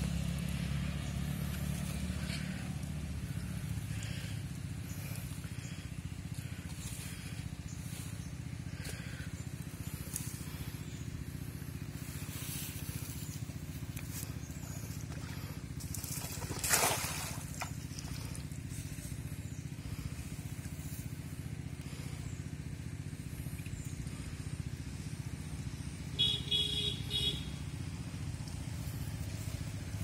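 A cast net lands on pond water with one short splash about seventeen seconds in, over a steady low engine hum. A brief high-pitched tone sounds near the end.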